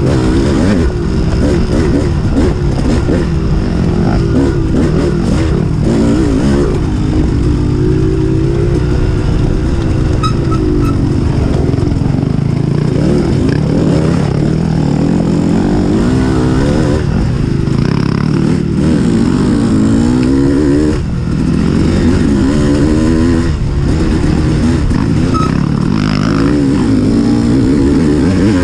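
Dirt bike engine under constant throttle changes on a tight woods trail, its pitch rising and falling every second or two as it revs up and backs off.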